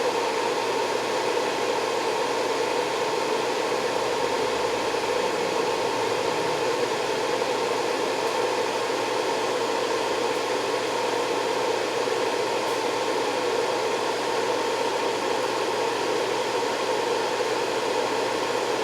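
Steady fan-like whirring noise with a constant hum underneath, unchanging throughout an amplifier dyno power run, as the SMD AD-1 amp dyno's loads are driven at 4 ohms.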